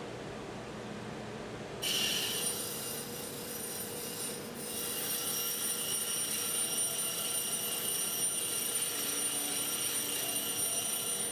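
Pedestal grinder running. About two seconds in, a single-point diamond cutting tool meets the spinning grinding wheel and sets up a steady high-pitched squeal as it trues the wheel round to its shaft, with a short break about four and a half seconds in.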